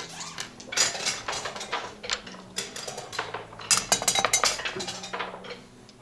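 Wooden backgammon checkers clacking as they are moved on the board, then a quick run of rattling clicks around four seconds in as a pair of dice is thrown and tumbles across the board.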